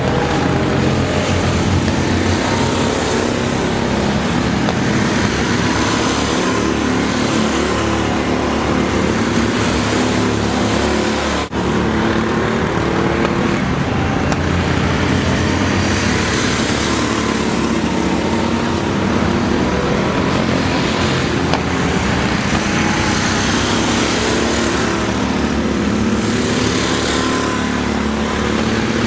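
Go-kart engines running steadily through a race, with one brief dropout in the sound about a third of the way through.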